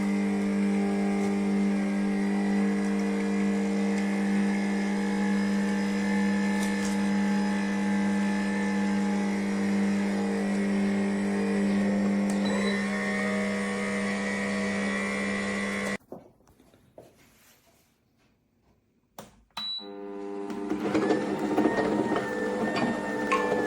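Electric motor of a cold-press slow juicer humming steadily. It cuts out about sixteen seconds in and starts again about four seconds later, running more unevenly.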